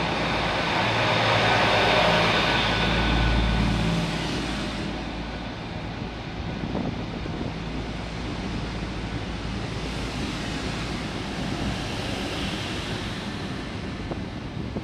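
Two coupled Class 800 trains running past along the platform: a continuous rush and rumble of the carriages going by, loudest in the first four seconds with a low hum and a steady higher whine over it, then an even, slightly quieter rush.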